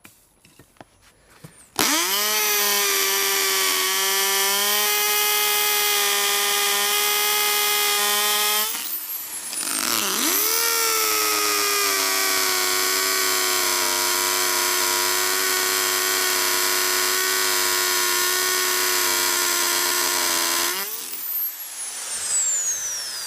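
Electric drill set to hammer mode, drilling out a stripped axle bolt in an inline skate frame. The motor starts about two seconds in and runs at a steady high whine, slows briefly and picks up again about nine seconds in, then winds down near the end.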